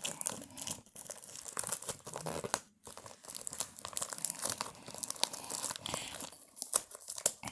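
Packaging of a trading-card blaster box being torn open by hand: a run of crinkling and tearing crackles, broken by short pauses about three seconds in and again near six and a half seconds.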